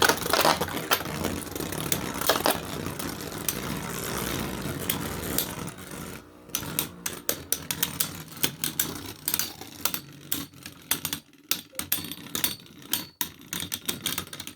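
3D-printed Beyblade spinning tops whirring and scraping against each other in a plastic stadium. After about six seconds this gives way to a run of sharp clicks and clatters.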